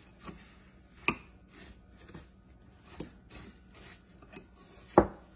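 A metal spoon stirring buttered, crushed Ritz crackers in a bowl: scraping and crunching of crumbs, with irregular sharp clinks of the spoon against the bowl, the loudest near the end.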